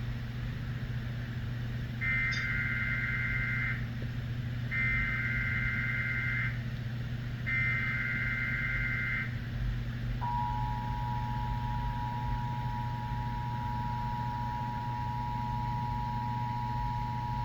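Emergency Alert System test signal: three short bursts of the SAME header data tones, each a harsh warbling screech lasting about two seconds, followed about ten seconds in by the steady two-tone attention signal, which holds to the end. A steady low hum runs underneath.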